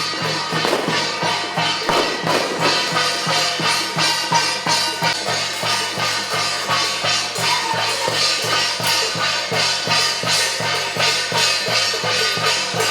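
Music with a fast, steady drumbeat.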